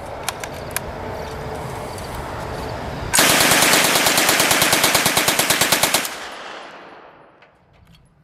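A single long burst of fully automatic gunfire, rapid evenly spaced shots lasting about three seconds, starting about three seconds in. The shots ring out with an echo that fades away over the next second or so.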